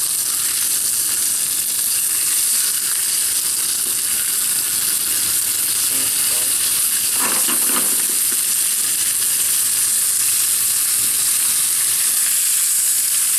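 Rump steaks sizzling steadily as they sear in hot oil in a non-stick frying pan on a gas burner.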